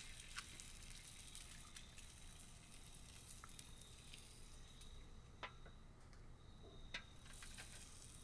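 Egg frying in oil on a Weber Q griddle plate: a faint sizzle with scattered crackling pops.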